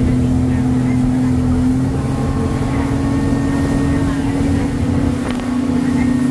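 A vehicle engine running at a steady speed, a constant low hum whose pitch shifts slightly a couple of times.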